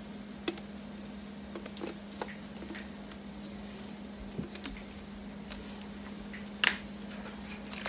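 Scattered light clicks and small knocks as the lid of a plastic Blender Bottle shaker holding raw eggs is handled and closed, with one louder knock near the end, over a steady low hum.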